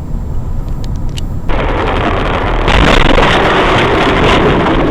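Low rumble of a car driving. About a second and a half in, a loud, even rushing noise starts suddenly and stays.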